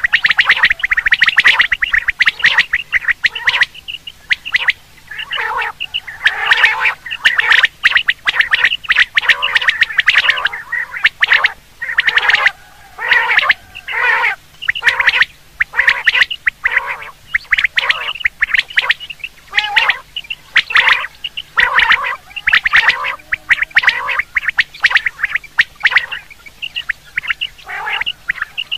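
Common quail calling over and over in quick, overlapping phrases: a quail call recording played as a hunting lure.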